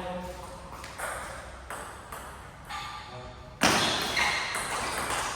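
Table tennis rally: the ball clicking off bats and table about twice a second, with one much louder hit a little past halfway, like a smash.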